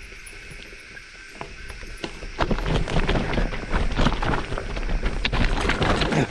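Mountain bike clattering and rattling over rough trail. It starts quieter and turns loud, with a dense run of sharp knocks and a low rumble, about two and a half seconds in.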